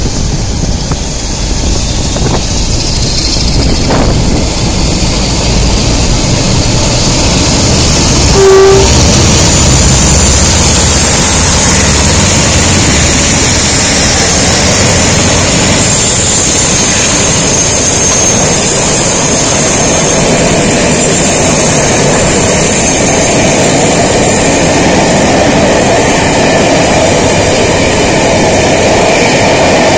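Train running on the rails, close and loud, a steady rumble with rail noise. A short pitched tone sounds about eight seconds in.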